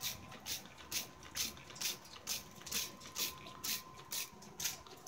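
Handheld spray bottle of water squirted over and over in a steady rhythm, about two short hissing squirts a second.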